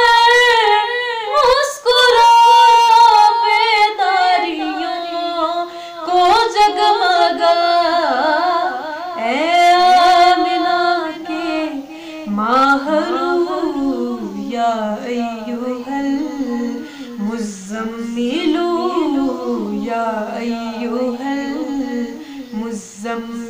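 A woman singing an Urdu naat solo, without instruments, in long held and ornamented notes with no clear words. The melody starts high and drops to a lower register about twelve seconds in.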